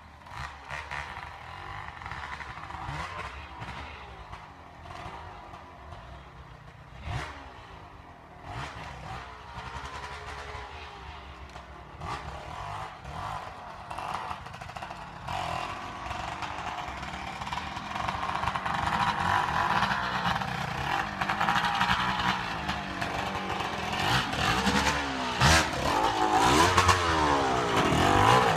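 Enduro dirt bike engines revving in uneven bursts over rough ground, growing steadily louder as the bikes come closer, with short rising and falling revs in the last few seconds.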